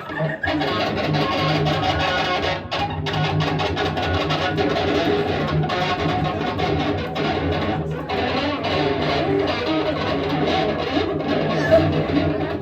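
Dense, loud electric guitar music from a live noise band's set, with a low note held underneath throughout.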